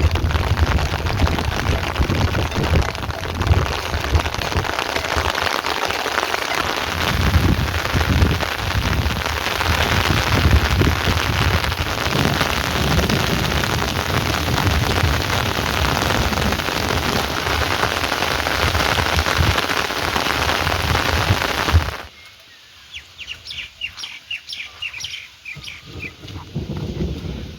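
Heavy rain pouring steadily, with a low, uneven rumble underneath. About 22 seconds in it cuts off abruptly to much quieter rain, and a bird chirps in a quick series.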